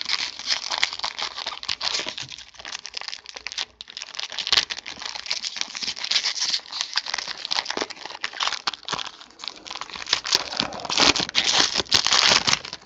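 Plastic wrapping of trading card packs crinkling and tearing as hands work it open, a dense run of crackles and snaps that is loudest near the end.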